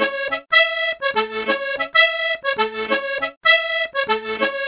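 Intro music: a short, bright melodic phrase repeated about every one and a half seconds.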